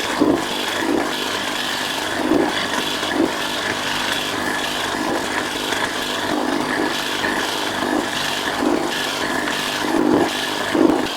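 Power hedge trimmer running and cutting through shrub branches, with an uneven chatter as the blades bite. It cuts off suddenly at the end.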